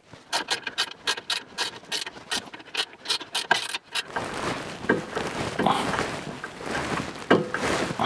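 Ratchet wrench clicking in a fast, even rhythm, about five clicks a second, as the nut under the lower suspension ball joint is run down. About four seconds in the clicking stops, giving way to rustling handling noise and a few metallic knocks as tools are handled.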